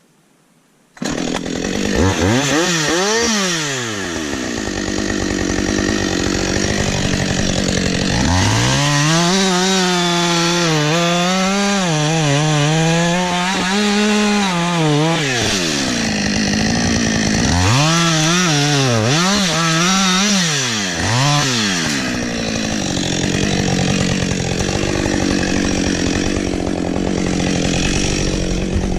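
Chainsaw starting abruptly about a second in, then running and cutting wood, its engine pitch rising and falling several times as it is throttled up and back down.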